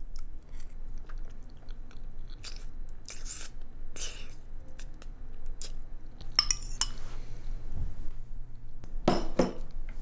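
A person chewing spaghetti from a bowl, with short mouth noises and light clicks of cutlery against the bowl, and a louder noise about nine seconds in.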